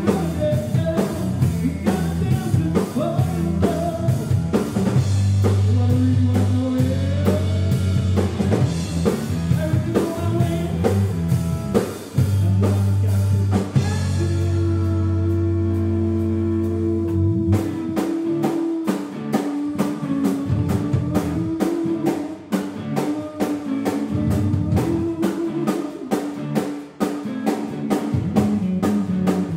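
Live rock band playing with a male singer: electric guitar, bass guitar and a full drum kit. The singing runs through roughly the first half, then the band carries on instrumentally over a steady, driving drum beat.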